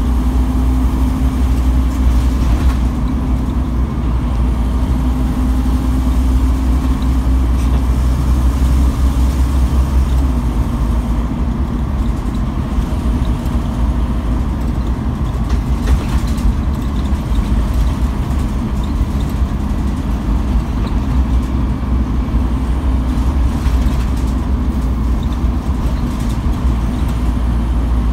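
Inside a Scania N230UB OmniCity single-deck bus on the move: the diesel engine's steady low drone mixed with road and body noise.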